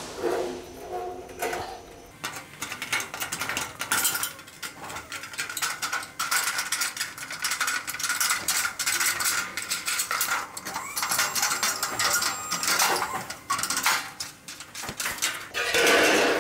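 Tin snips cutting Colorbond sheet-steel fascia: a long quick run of sharp metallic snips and clicks as the blades work through the sheet.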